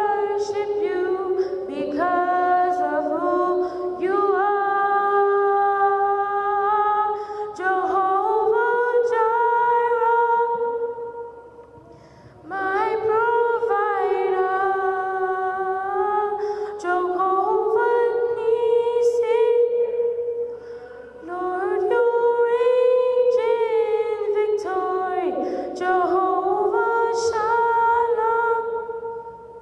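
A girl singing a solo through a handheld microphone, holding long notes in phrases with short breaks between them. Only her voice is heard.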